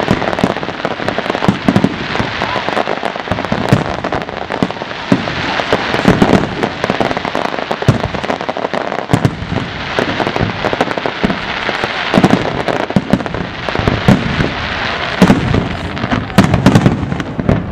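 Aerial fireworks display: dense, continuous crackling with many sharp bangs, the heavier bangs coming thicker towards the end.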